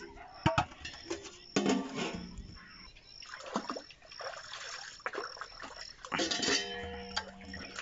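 Water splashing and sloshing as a steel pot and its lid are rinsed in an open water tank, with a few sharp clanks of the metal that ring briefly, the loudest about six seconds in. A faint high chirp repeats in the background.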